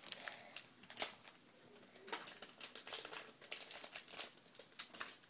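Small foil or plastic toy packet crinkling and crackling as it is opened by hand and the toy is pulled out, in irregular crackles with a sharper one about a second in.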